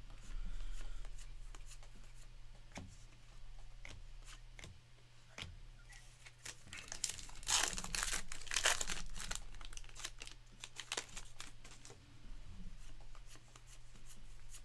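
Trading card packs and cards being handled: crinkling and tearing of wrapper paper with light clicks of cards, loudest about halfway through.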